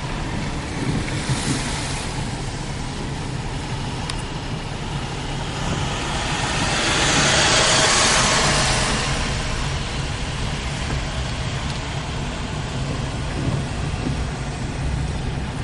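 A car driving slowly, its engine and tyre noise heard from inside the car as a steady rumble and hiss. About halfway through, the hiss swells louder for a few seconds and then fades again.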